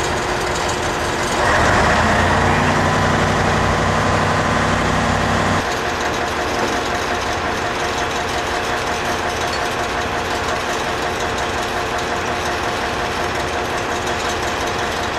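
An engine running steadily. From about one and a half to five and a half seconds in it runs louder with a steady pitched drone, then drops back to a lower, even running sound with a thin high tone over it.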